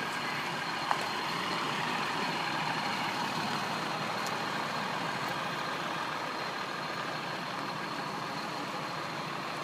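A truck running steadily, with a single click about a second in.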